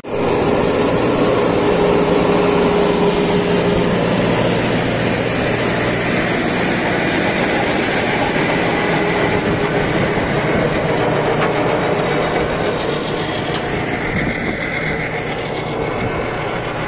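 Başak 2110S tractor running under load while it drives a Toscano 3500 vertical-tine power harrow through the soil. The tractor's steady engine drone sits under the dense rattling clatter of the harrow's spinning tines and packer roller.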